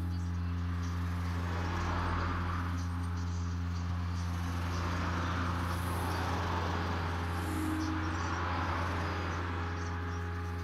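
Steady low hum with a hiss over it that swells and fades gently.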